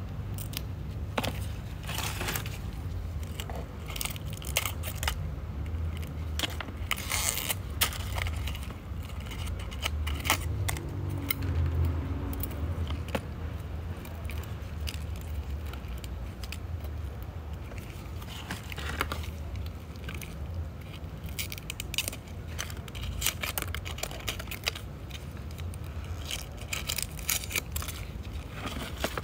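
Dry, dead succulent leaves being stripped off the plants by hand, crackling and snapping in short irregular bursts, over a low steady hum.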